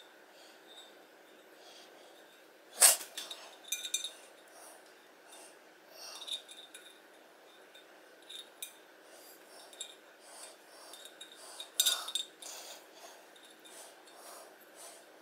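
Handling noise from hands-on work with small parts: scattered light clicks and taps, with two sharp clinks about three seconds and twelve seconds in.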